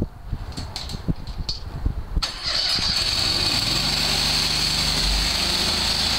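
Truck-mounted hot-water pressure washer (3000 psi): its engine runs with an uneven low rumble, then about two seconds in a trigger is squeezed and a high-pressure water jet hisses on against concrete. About a second later the engine and pump settle into a steady hum as the machine adjusts pressure and flow to the spraying gun.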